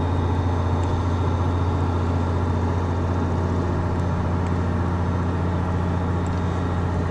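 A steady low motor hum, even and unchanging.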